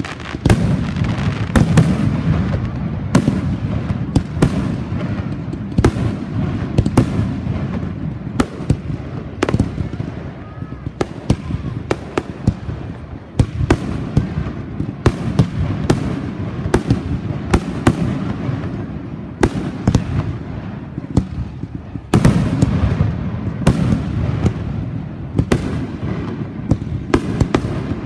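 Fireworks display: an irregular run of sharp bangs, about one or two a second, over a continuous low rumble of booms and crackle.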